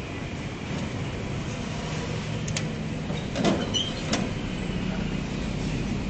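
Steady engine and road hum heard inside a moving car's cabin, with a few short knocks or clicks in the middle.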